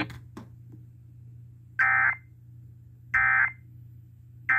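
Emergency Alert System end-of-message code: three short bursts of data tones, each about a third of a second long and about 1.4 s apart. They mark the end of the test broadcast.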